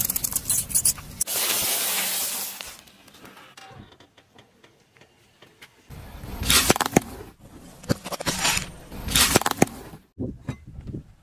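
A car tyre rolling over plastic bottles of liquid, which squirt out with a brief hiss. After a pause, crackling and cracking as the tyre crushes a plate of M&M's candies and the plate breaks into pieces.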